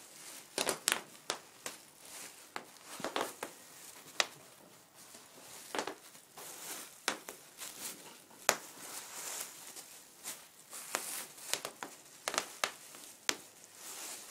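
Bubble wrap crinkling and rustling in irregular bursts as ferrets scramble over and through it, with scattered sharp clicks.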